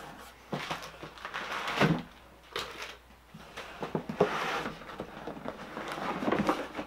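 Cardboard shipping box being opened by hand: flaps pulled back and contents shifted, giving several short bursts of scraping and rustling cardboard.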